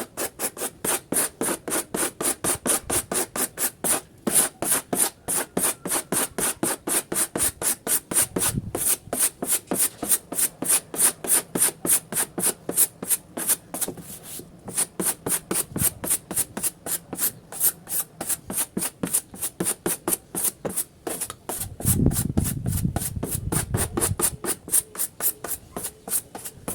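Hand rubbing back and forth over a washing machine's plastic control panel in quick, even strokes, about three to four a second, each with a dry, scratchy hiss. About three-quarters of the way through, a few seconds of muffled rumble from handling are heard.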